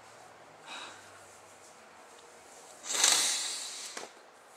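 A man exhaling heavily, a long breathy sigh about three seconds in that fades out over a second, after a faint short breath earlier on.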